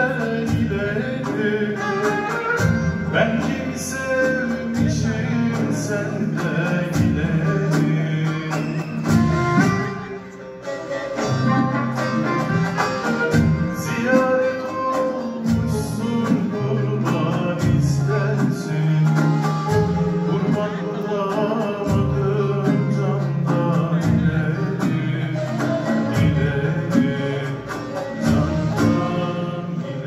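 Turkish folk music choir singing live, accompanied by plucked bağlama and acoustic guitar with box-drum percussion; the music briefly thins about ten seconds in.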